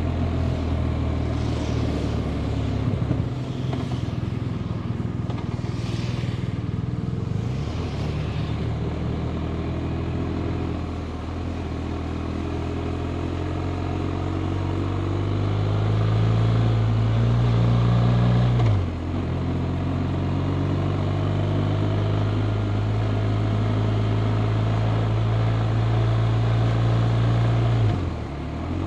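BMW R 1250 RT's 1254 cc boxer twin running on the road. Its pitch rises steadily as it pulls, then drops sharply about two-thirds in and again near the end, as at an upshift, with some wind noise in the first few seconds.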